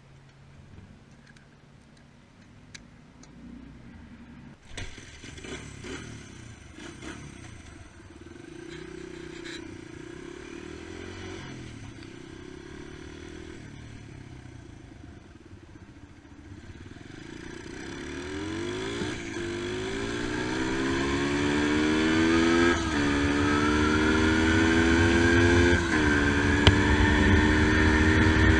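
Honda XR100's single-cylinder four-stroke engine, fitted with a new carburettor and a cold air intake, starting about five seconds in and running at a low, steady idle. Later the revs climb and it grows steadily louder, with two brief dips in pitch near the end.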